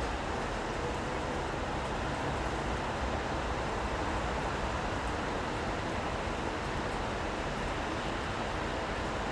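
Steady city street ambience in the rain: an even wash of rain hiss and traffic rumble, with a faint low hum underneath.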